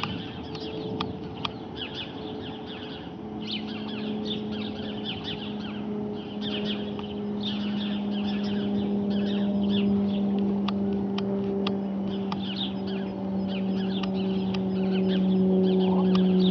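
Light propeller aircraft droning overhead: a steady low hum that comes in a few seconds in, grows louder and slowly drops a little in pitch as it approaches. Small birds chirp throughout.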